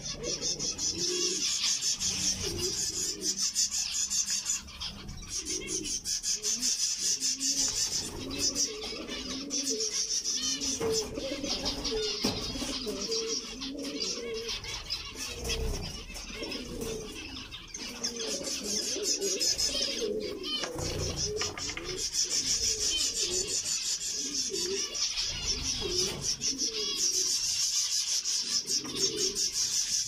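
A flock of zebra finches chattering with a dense, continuous stream of short high calls, while doves coo low underneath.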